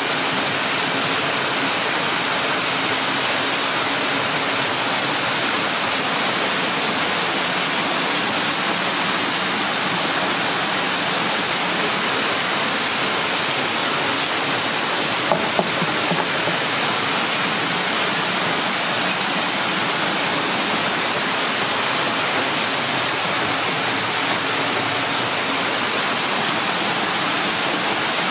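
Steady, even rushing noise with no change in level, and one faint click about fifteen seconds in.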